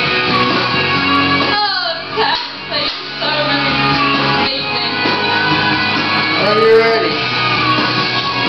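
Music playing: a song with a singing voice over instruments.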